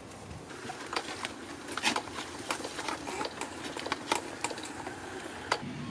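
Irregular light clicks and taps of a plastic click-on garden hose connector being fitted to an outdoor tap and a garden hose unwinding from a wheeled hose reel.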